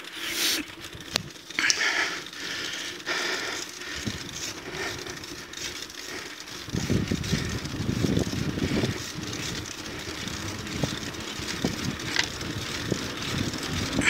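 Bicycle riding on a paved road, heard from a camera mounted on the bike. In the first half the rider breathes hard on the climb. From about halfway in, a low wind rumble on the microphone and road noise build as the bike gathers speed.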